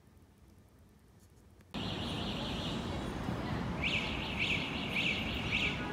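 A quiet start, then outdoor street ambience cuts in suddenly: a steady background rumble with high-pitched chirping over it. The chirping is a steady high drone at first, then short up-and-down calls repeating about twice a second.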